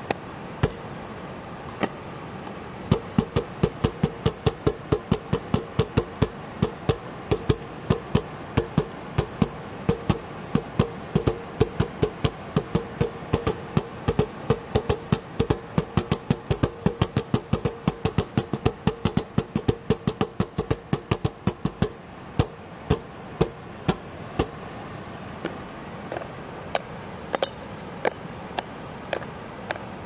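Nunchaku drumming on two plastic buckets: a rapid, uneven run of sharp strikes, densest through the middle and thinning out near the end, over a steady background rush.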